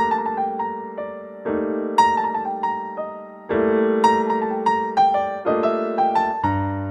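Background keyboard music: held piano chords that change about every two seconds, under a simple melody of single notes.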